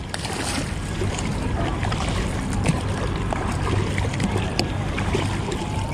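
Paddle strokes splashing and water washing along the sides of an inflatable stand-up paddle board, paddled from a seated position on calm sea, as a steady rush with small scattered splashes.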